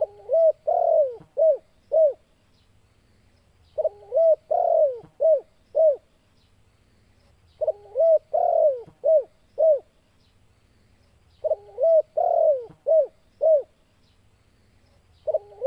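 Spotted dove (tekukur) cooing its song in the "kuk 2" pattern: a phrase of a few coos with one longer note, ending on two short notes, repeated about every four seconds. Four full phrases, with a fifth starting at the very end.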